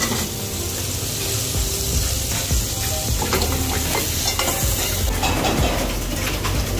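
Food sizzling and frying in a hot pan, a steady hiss with scattered clicks and scrapes of a utensil.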